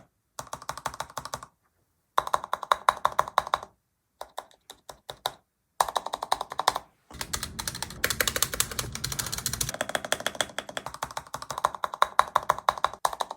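Stabilized keys of a mechanical keyboard pressed rapidly over and over, a fast run of sharp clacks, to test the stabilizers. The stabilizers have just been clipped, lubed with Krytox 205 grade 0, Holee-modded and taped against rattle. The clicks come in several short takes that cut off abruptly into silence.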